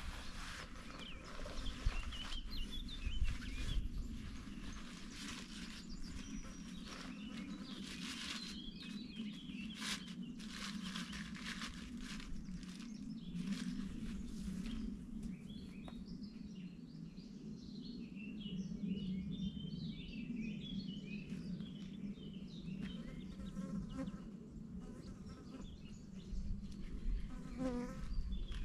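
Insects buzzing in a low, wavering drone. Birds chirp over the last few seconds, and scattered clicks and rustles fall over the first half.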